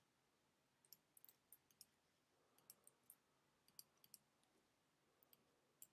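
Near silence with a dozen or so faint, irregular clicks from a computer keyboard and mouse.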